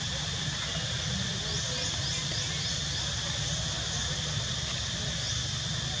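Steady outdoor background: a constant high insect drone over a low rumble, with a quick run of faint high chirps about one and a half to three seconds in.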